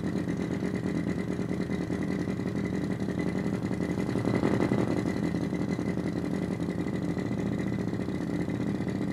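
Synthetic engine sound from two function generators, one in sweep mode driving the other's filter input, played through a small loudspeaker: a low, fast, even throb like an idling engine, with a faint steady high tone. It swells slightly about halfway through as the generator's frequency knob is turned.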